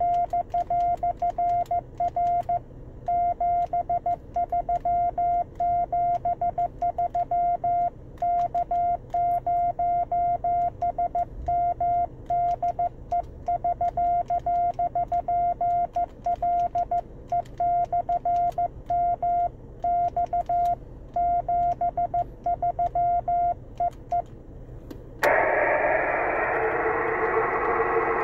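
Morse code on a 10 GHz amateur radio link: a single steady tone keyed on and off in short and long elements. About three seconds before the end the keying stops and a loud, steady radio hiss cuts in suddenly.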